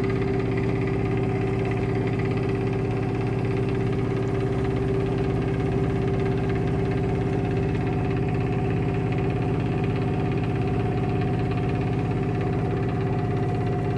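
A sailing yacht's engine running steadily at constant speed, the boat motoring over calm water, with an even hum.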